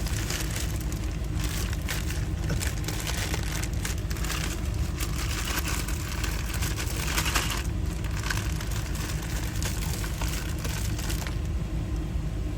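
Crinkling and rustling of a bag and packaging being handled and crumpled as leftover lock parts and wrappings are stuffed in as rubbish, in irregular bursts over a steady low rumble.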